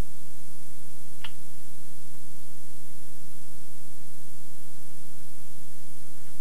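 Steady VHS tape hiss with a low mains hum, and one short, sharp tick a little over a second in.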